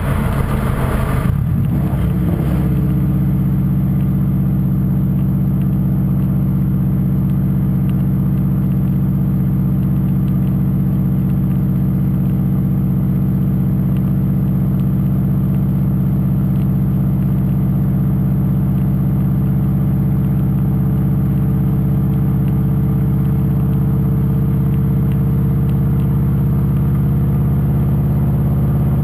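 Turbocharged Subaru WRX flat-four running through a catless 3-inch downpipe and 3-inch cat-back exhaust, heard right beside the tailpipe while driving. Uneven for the first two seconds or so, then it settles into a steady note at constant speed.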